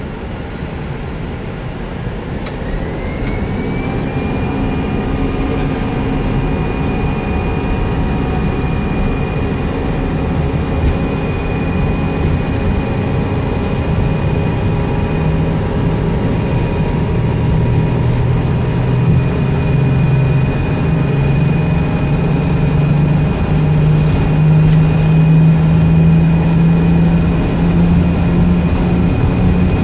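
Airbus A319 jet engines heard from inside the cockpit, spooling up with a rising whine about three seconds in, then holding a steady whine over a low rumble that grows louder during the take-off roll.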